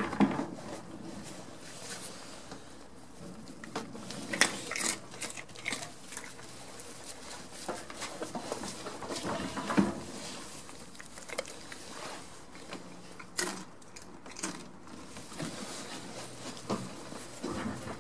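Goats moving about in a wooden, straw-bedded pen: irregular small knocks, scrapes and rustles of hooves and bodies against boards and straw, a few louder knocks among them.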